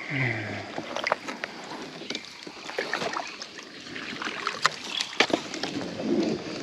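Scattered light knocks and clicks from a fishing kayak and the gear handled in it, over faint water noise.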